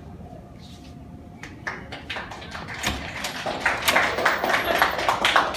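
A door latch clicks and a classroom door is pulled open about three seconds in, then a small group of people clap, the clapping growing louder toward the end.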